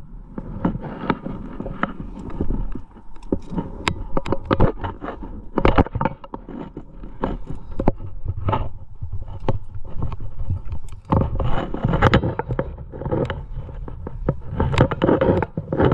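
Climbing rack clinking and scraping: carabiners and cams on the harness jingling in many short, sharp clicks, mixed with scuffing and rubbing against the rock as the climber moves.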